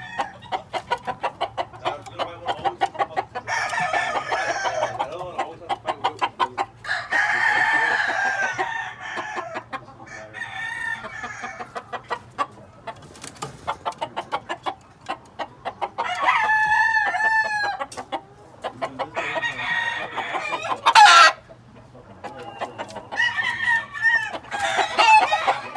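Grey gamefowl roosters crowing repeatedly, about five times. Fast runs of short ticking sounds fill the gaps between crows. The loudest crow ends sharply about 21 seconds in.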